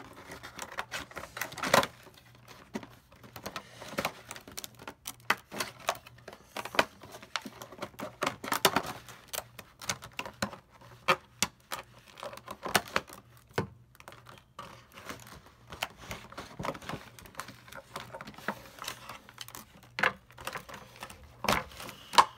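Hard plastic packaging being worked open by hand: an irregular run of sharp clicks, snaps and crackles of the plastic.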